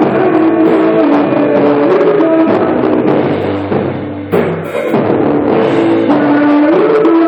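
Rock band playing, with a drum kit and guitars holding sustained notes, and a sharp crash-like hit about four seconds in.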